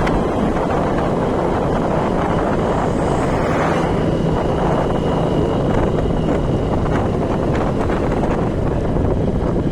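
Steady wind rushing over the microphone from a moving vehicle, with road and vehicle noise underneath. A faint steady high whistle runs for a few seconds in the middle.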